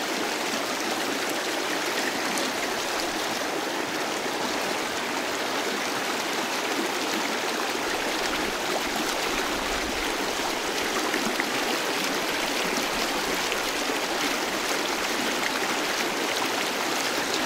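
Shallow river rapids rushing steadily over stones, a continuous, even water noise.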